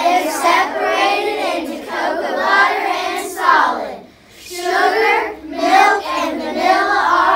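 A class of young children singing together without accompaniment, in phrases with a short break about four seconds in.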